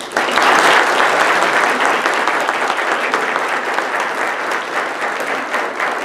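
Audience applauding: many people clapping at once, starting suddenly at full strength and easing slightly before it is cut off abruptly just after the end.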